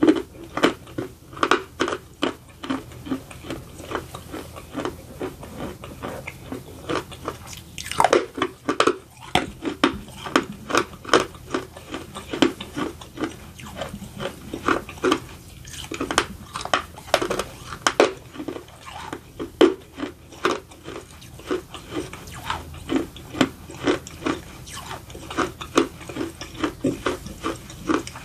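Close-up chewing of baked edible clay (barro), with many irregular sharp, dry crunches.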